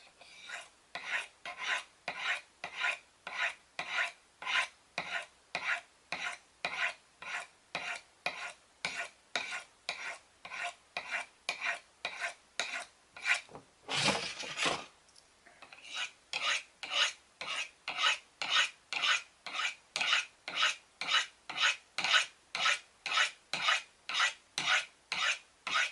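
AUS6 steel knife blade drawn in alternating sharpening passes along a fine sharpening rod, a steady rasping stroke about twice a second. About halfway through comes one longer, louder stroke and a short pause, then the even strokes resume.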